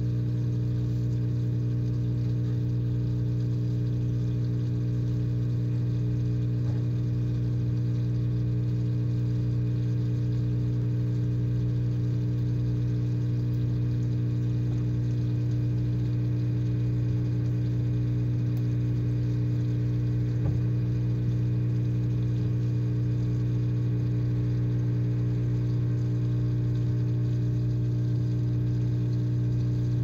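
A steady low electrical hum, even and unchanging throughout, with a faint click about seven seconds in and another about twenty seconds in.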